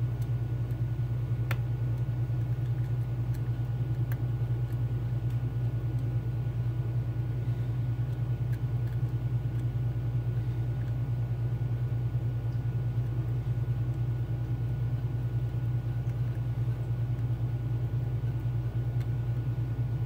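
Steady low hum in the room, with two faint ticks in the first few seconds from a lock pick working the pins of a Mul-T-Lock Junior cylinder.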